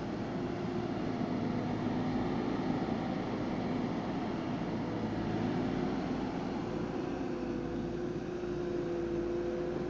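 Engine of a Kershaw MD-20 rail-mounted boom machine running steadily, a constant drone with a held low hum.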